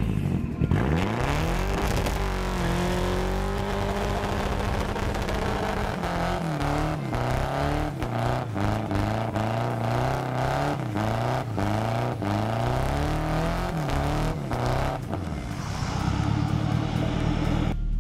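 Volvo 740 16V turbo engine revved hard for a burnout on an uphill start. It climbs to high revs about half a second in and is held there, then surges up and down repeatedly with sharp crackles over the noise, before the revs drop away near the end.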